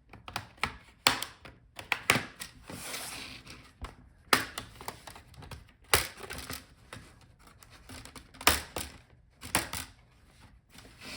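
Plastic snap clips of a Dell Latitude 5410's bottom case popping loose as a plastic pry tool is worked around the edge: a string of irregular sharp clicks and snaps, with some scraping of plastic on plastic.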